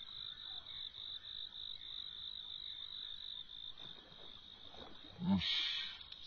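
Steady, high-pitched, evenly pulsing chorus of calling frogs, with one short, louder, low croak about five seconds in.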